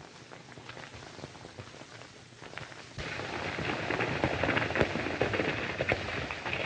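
Faint crackle of an old film soundtrack, then about three seconds in the galloping hoofbeats of horses come in suddenly, a dense, uneven clatter that stays loud.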